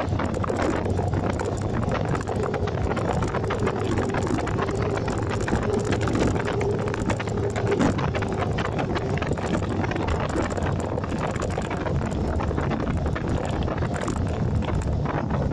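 Motorcycle riding at road speed: a steady low engine hum under constant wind rush on the microphone.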